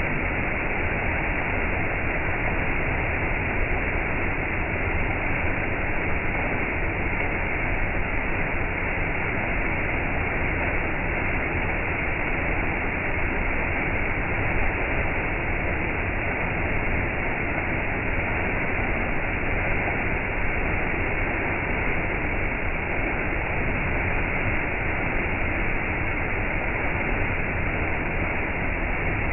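Small waterfall pouring over a rock ledge into a shallow pool: a steady rush of falling water.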